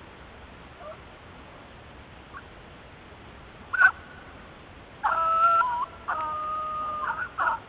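Beagles baying in the brush, giving tongue as they trail a rabbit: one short yelp about halfway, then drawn-out howling bays from about five seconds in, breaking into quicker short yelps near the end.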